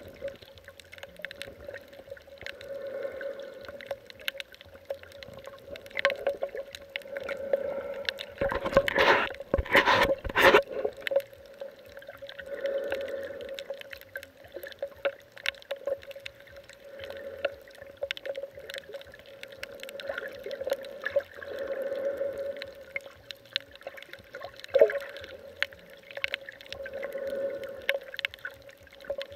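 Muffled underwater water sound from a submerged camera over a shallow reef: soft swells about every three seconds with scattered clicks and a faint steady hum, and a louder rough burst of splashing about nine seconds in.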